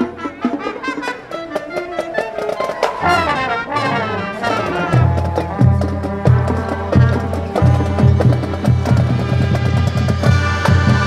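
Marching band playing: brass with trumpets and trombones over a drumline. Quick runs early on give way to a steady beat of deep bass-drum hits from about halfway.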